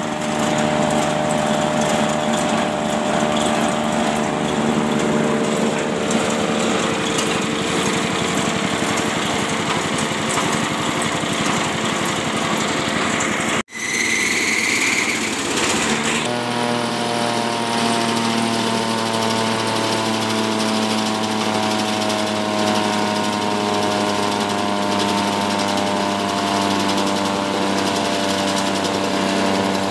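Small single-cylinder GX160-type 5.5 hp petrol engine running steadily, driving a grass chopper. There is a brief cutout about halfway through, then a short high whine before the steady running resumes.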